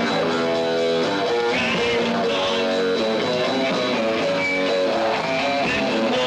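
Rock music with guitar playing steadily, chords and held notes at a constant loudness.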